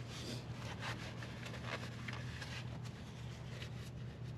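Faint rubbing, scraping and light taps from handling, over a steady low hum.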